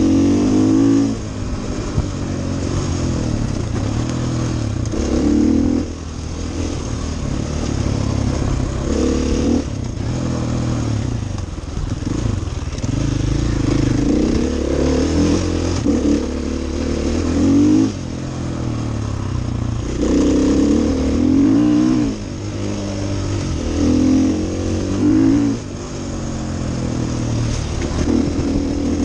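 KTM enduro motorcycle engine under way, the throttle opened and eased again and again, so the engine note climbs and drops back every few seconds.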